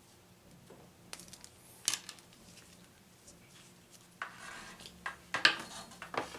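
Clicks and clatter of small hard objects being handled on a workbench, with a sharp click about two seconds in and a busier run of knocks and rustling near the end.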